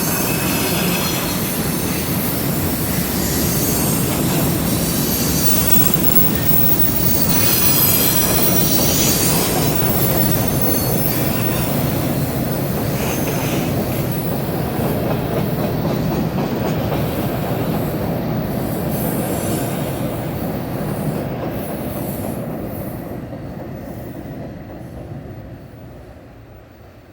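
Train crossing a rail bridge, its wheels rumbling and squealing on the rails. The sound fades away over the last several seconds as the train moves off.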